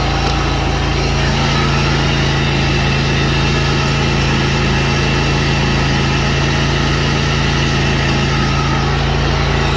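The 23-horsepower Briggs & Stratton professional-grade engine of a zero-turn riding mower running steadily and smoothly, with no knocking.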